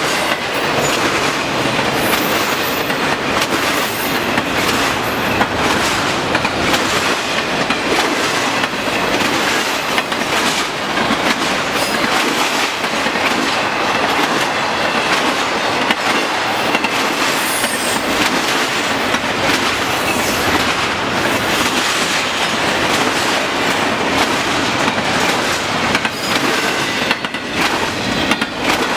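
Intermodal freight train's cars rolling past at speed: a steady rush of steel wheels on rail, with clickety-clack over the joints and a few brief high wheel squeals.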